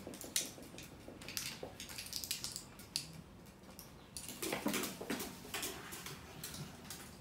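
Small dogs' claws clicking and pattering on wooden stairs as they step down, in a string of light irregular ticks. A brief louder sound comes about four and a half seconds in.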